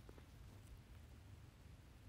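Near silence: a faint low hum with a few soft taps of a silicone spatula stirring thick masala in a nonstick pot, mostly in the first second.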